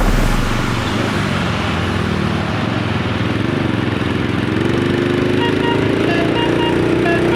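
Vehicle engine running with road noise. From about halfway its pitch climbs slowly and steadily as it accelerates. Faint short high beeps come and go near the end.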